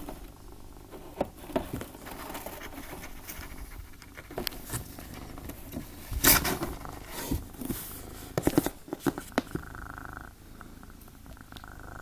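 Domestic cat purring steadily, with scattered short rustles and bumps; the loudest comes a little past the middle.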